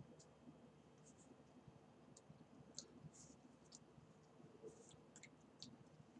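Near silence: faint room tone with a few soft, short clicks scattered through it.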